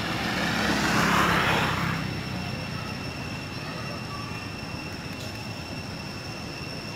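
Steady outdoor background rush with a broad swell of noise that builds to a peak about a second in and fades away, over a faint steady high-pitched tone.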